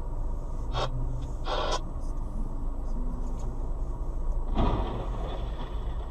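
Car driving, its engine and tyre noise a steady low rumble heard from inside the cabin. Short rattling knocks come twice between one and two seconds in, and a louder one about four and a half seconds in.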